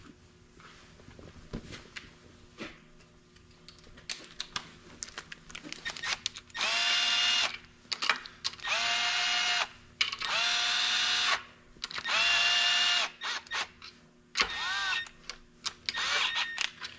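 Red cordless drill-driver spinning up in about six short bursts of a second or so each, driving down the oil pump's mounting bolts on a 12-valve Cummins engine block. The first few seconds hold only light clicks and taps of parts being handled.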